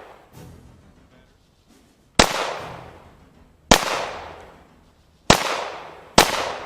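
Glock Gen 4 9mm pistol fired four times in slow, aimed succession, the shots a second or two apart, each sharp crack followed by a long echo dying away.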